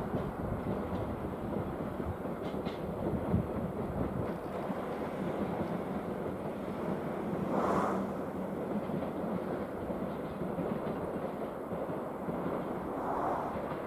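Freight train rolling past on the rails, a steady rumble of wheels on track that swells for a moment about eight seconds in.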